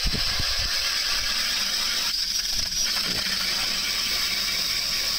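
DeWalt 20-volt cordless drill spinning a Clam ice auger into thick lake ice: a steady high motor whine with the scraping hiss of the cutting blades. A few scuffs of boots kicking snow come right at the start.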